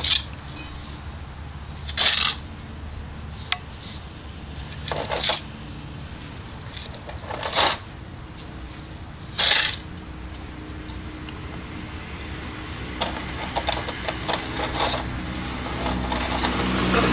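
Narrow steel tuckpointing tool scraping wet mortar off a mortar board and pushing it into the joints of a block wall: several short gritty scrapes, roughly two seconds apart, with more continuous scraping and rustling near the end. A faint insect chirps steadily in the background.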